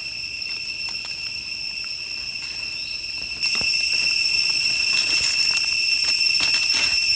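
Insects singing in a steady, high-pitched drone, which gets louder about three and a half seconds in. Faint rustles and clicks of leaf litter and a knife trimming mushroom stems come through near the end.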